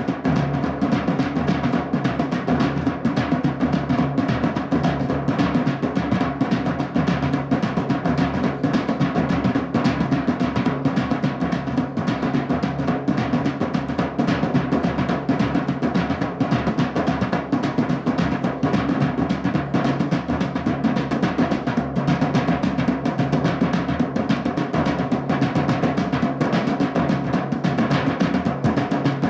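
Drumming as a music track: a fast, unbroken run of drum strokes with deep, booming low tones, even in level throughout.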